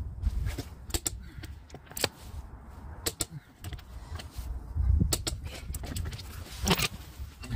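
Scattered sharp metallic clicks and clinks of a long-handled socket wrench tightening a car's wheel nuts, over a low rumble.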